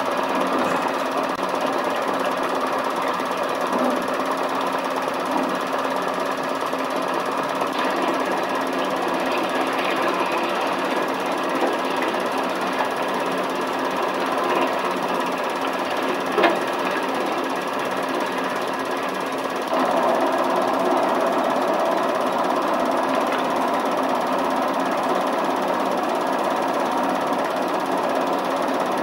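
Steady mechanical clatter of a machine running, with one short knock about sixteen seconds in and a step up in loudness a little before twenty seconds.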